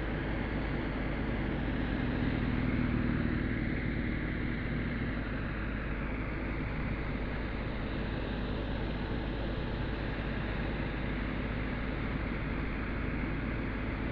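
Motorcycle engine running at low revs as the cruiser is ridden through a slow, tight turn, under a steady hiss. The engine is a little louder about two to three seconds in.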